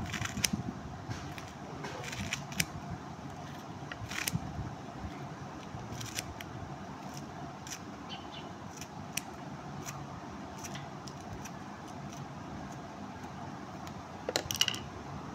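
Kitchen scissors snipping through spinach leaves: irregular short snips about once a second, with a quick run of louder snips near the end, over a steady background hum.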